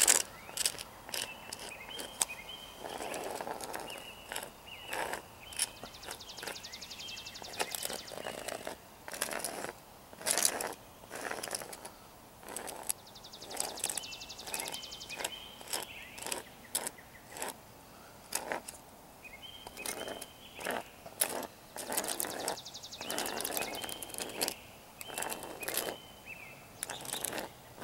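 A small board scraping and tapping across an asphalt driveway crack in irregular strokes, spreading crack filler and pressing it down into the crack. Short high chirps sound in the background several times.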